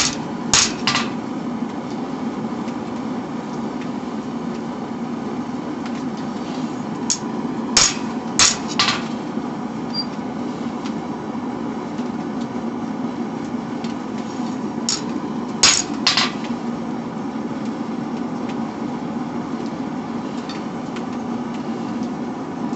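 Hammer blows on a hot steel knife blade at the anvil, straightening it: three short groups of three or four ringing strikes several seconds apart, over a steady rushing noise.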